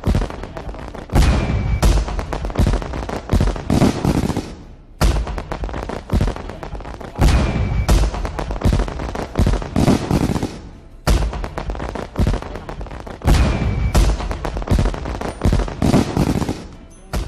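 Fireworks sound effect added in editing: a rapid string of bangs and crackling pops, the same clip looping about every six seconds.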